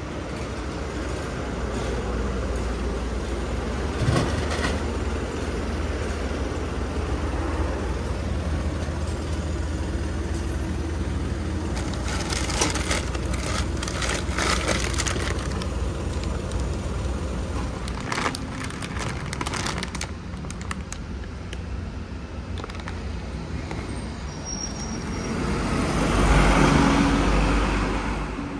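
Steady street traffic rumble, with a vehicle passing close and fading near the end. About four seconds in there is a single knock, and around the middle a plastic bag crinkles and rustles as it is pulled out of a vending machine's flap-covered dispensing tray.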